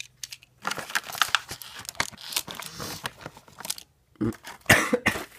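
Plastic packaging crinkling and tearing as a small package is handled and opened, followed near the end by a few short, loud bursts that sound like coughs.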